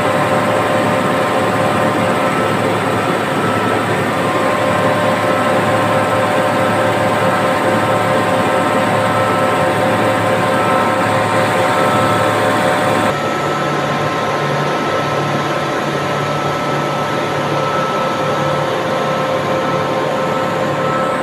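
Large industrial refrigeration compressors running in an ice plant's machine room: a loud, steady machine noise with several held hums at different pitches. About thirteen seconds in, the higher hiss drops away abruptly and a lower hum carries on.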